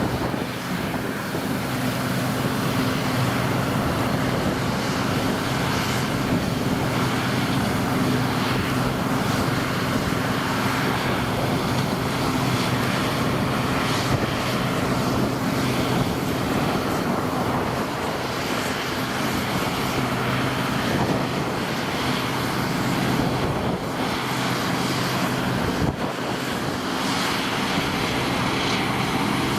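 New Holland combine harvester running steadily while cutting oats: a constant low engine drone under the dense rushing noise of the machine at work.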